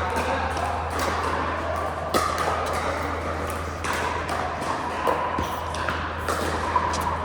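Pickleball play: paddles striking the hard plastic ball and the ball bouncing, sharp pings at irregular intervals about a second apart, over a steady low hum.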